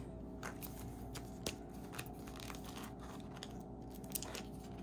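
Scattered small plastic clicks and crinkles as a gold Mini Brands plastic capsule is handled and worked at to open it. The capsule halves are stuck, described as extra glued shut.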